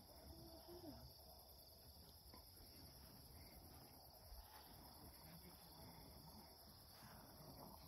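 Near silence: crickets chirping steadily in the background.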